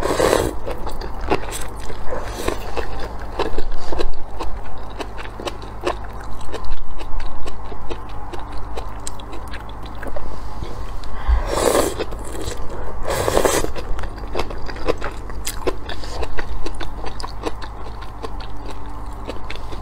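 Close-up eating sounds: noodles slurped off chopsticks, with a loud slurp at the start and two more about a second and a half apart a little past the middle. Between the slurps there is wet chewing and small crisp bites of pickled cucumber.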